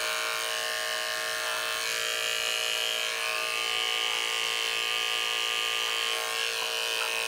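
Andis 2-speed electric pet clipper with a number 10 blade running steadily with a constant hum as it shaves the fur out from between a dog's paw pads.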